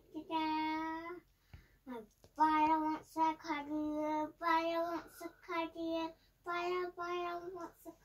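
A child's voice singing a song in long, held notes, several sung phrases with short breaks between them.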